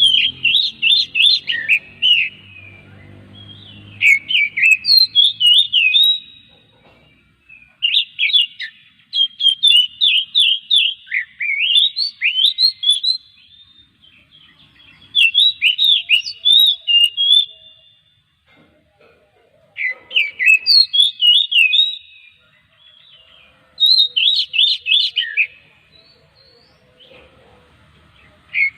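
Oriental magpie-robin (kacer) singing: bouts of rapid, high, sweeping whistled notes, each about two seconds long, with pauses of one to two seconds between them.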